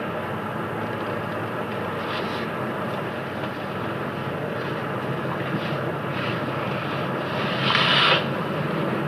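Toyota Land Cruiser LC300 driving slowly, heard from inside the cabin: a steady engine and road noise. About eight seconds in, a brief, louder hiss rises over it.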